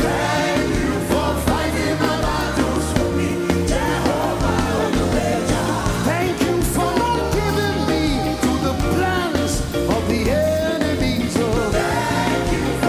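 Live gospel worship music: a singing voice over a band with a steady bass line.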